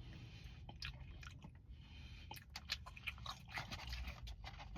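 A person chewing food close to the microphone: soft, irregular wet clicks and crunches.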